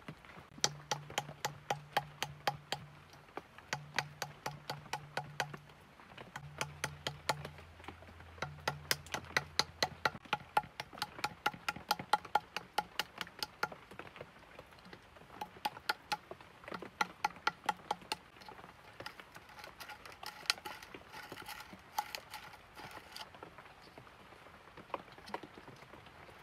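Sharp, rapid taps of a small tool chipping a hole through the node of a hollow bamboo tube, each tap ringing briefly in the tube. The taps come about three a second in runs with short pauses and grow sparse near the end.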